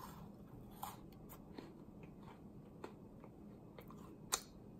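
Loacker Quadratini chocolate wafer cookie being chewed in the mouth, faint crisp crunches scattered through the chewing, with a sharper click a little past four seconds in.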